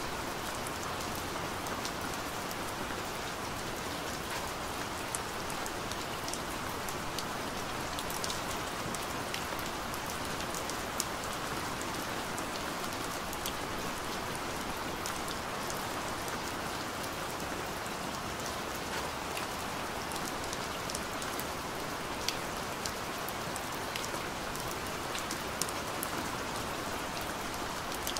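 Steady rain: an even hiss with scattered sharp drop ticks.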